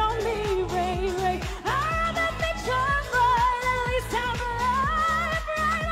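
Live pop dance track with a steady kick-drum beat, and a woman singing over it. From about two seconds in she holds long, high notes with vibrato.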